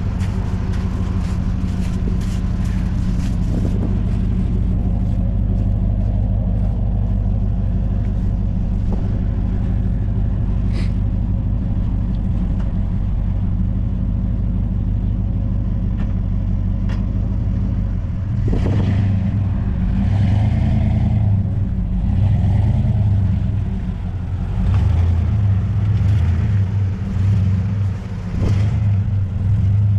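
Vehicle engine pulling under load while driving out through wet, slushy snow in a field. It is a steady low drone at first, then from a little past halfway it grows louder and surges unevenly, with a few short knocks.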